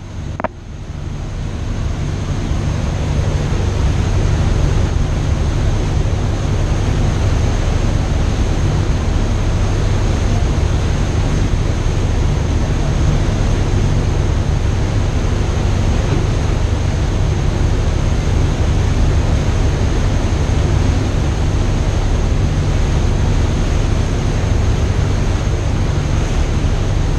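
A boat's engine running steadily with a low drone, under rushing water and wind on the microphone.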